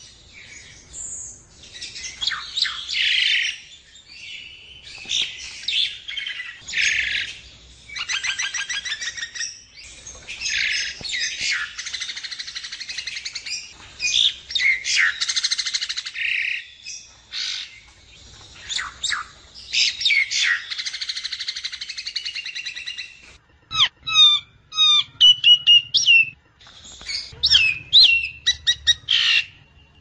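Myna song (sáo đen): a long run of harsh chattering, squawky and whistled notes in quick succession. In the last several seconds it breaks into short, sharp repeated notes with brief falling whistles.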